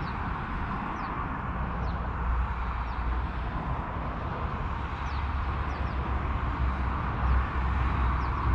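Steady outdoor rumble with a fluctuating low buffeting, with a small bird giving short, high, falling chirps again and again.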